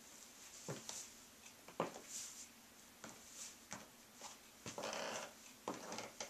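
Stiletto high heels stepping on a ceramic tile floor: a few sharp, irregular clicks, with a brief rustle about five seconds in.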